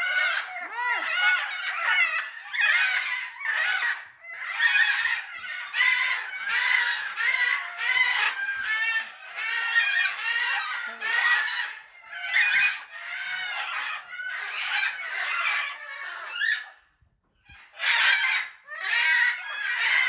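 Macaws squawking and screeching: a rapid, almost unbroken run of harsh calls, breaking off for about a second near the end before two more calls.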